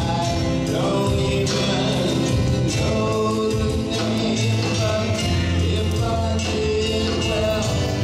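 Live band playing a slow song: acoustic guitar, electric bass, keyboards and drums, with a voice singing over them.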